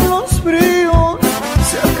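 Tierra Caliente music in an instrumental stretch: a melody line carried over a steady bass-and-drum beat.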